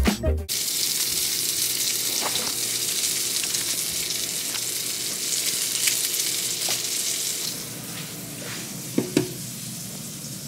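Ground beef sizzling steadily as it fries in a nonstick pan, with a few short scrapes of a spatula stirring it. The sizzle drops somewhat quieter near the end.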